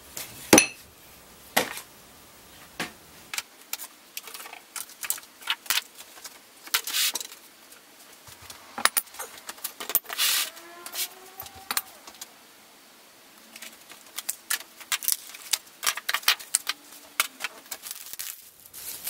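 Metal barbell weight plates clinking and clanking against each other as they are lifted off the board and stacked, with a short metallic ring about ten seconds in, among scattered knocks and clicks from clamps and wooden boards being taken off.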